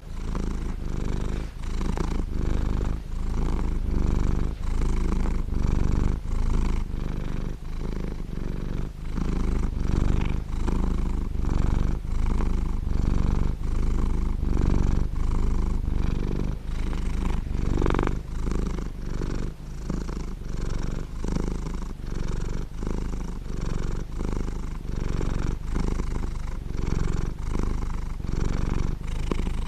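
Blue British Shorthair cat purring steadily and loudly, close up, while its head and chin are stroked. The purr swells and eases in a regular rhythm with each breath.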